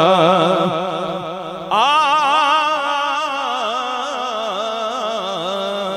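A man's voice singing long, drawn-out melismatic phrases into a microphone, the held notes wavering with a fast vibrato, a new phrase starting about two seconds in. It is the sung opening of a Punjabi manqabat in praise of Imam Hussain.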